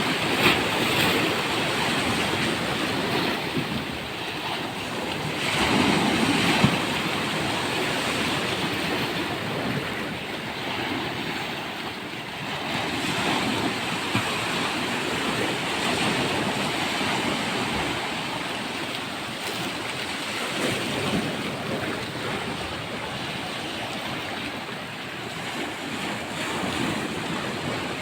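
Sea waves washing onto a beach, the surf swelling and easing in a steady rush.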